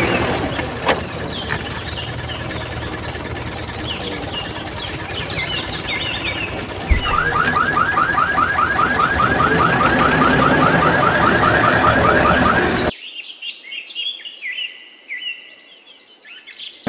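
Tractor-engine sound effect, a steady low rumble, with birds chirping over it. About seven seconds in, a rapid repeating rising chirp joins at about five a second; near thirteen seconds the engine and the chirp train cut off suddenly, leaving only birdsong.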